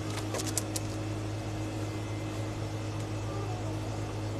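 Steady low electrical hum, with a few light clicks about half a second in.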